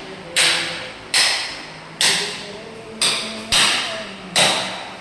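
Hammer blows in tile work: six sharp strikes, roughly one a second, each followed by a short fading rasp.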